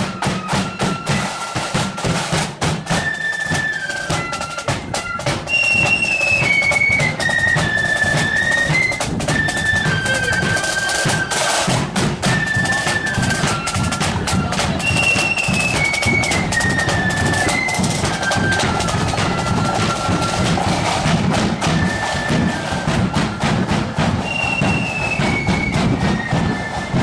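Marching flute band playing a tune: the flutes carry a high melody in repeated falling phrases over rapid snare drumming and a bass drum beat.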